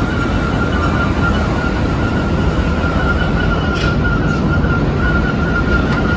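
Heavy cement-plant machinery running: a loud, steady industrial din with a constant high whine running through it.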